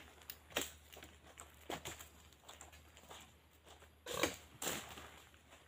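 A few short, faint thuds and scrapes of a long pole being worked into an oil palm fruit bunch on the ground, the loudest pair about four seconds in.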